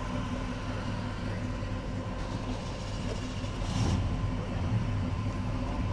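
A vehicle engine running steadily, heard as a low, even hum, with a short hiss partway through.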